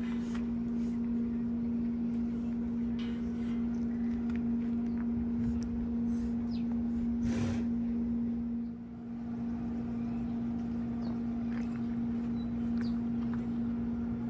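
A steady mechanical hum at one constant pitch, with scattered light clicks and knocks over it; the hum dips briefly about nine seconds in.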